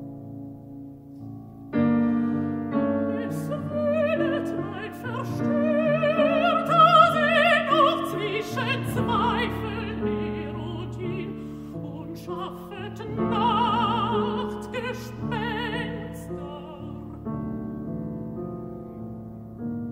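A mezzo-soprano sings a German art song with wide vibrato, accompanied by piano. The piano starts quietly and grows louder about two seconds in. The voice stops a few seconds before the end, leaving the piano playing alone.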